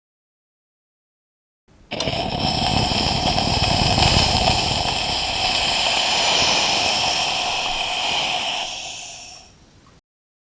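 Steam iron giving a long burst of steam: a loud hiss with a low rush under it that starts suddenly about two seconds in, holds for several seconds and then fades away.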